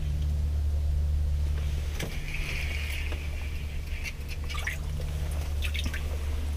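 A bluegill being reeled up on a short ice-fishing rod and lifted out through the ice hole: clicks and taps from the spinning reel and hands, with water trickling and splashing, over a steady low hum.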